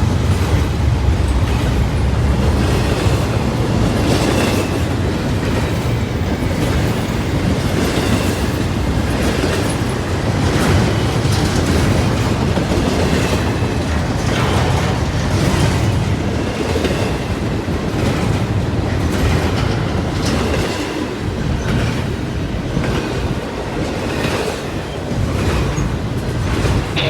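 Freight train rolling past, its wheels clicking steadily over the rail joints with a continuous rumble. The rumble is heaviest in the first few seconds.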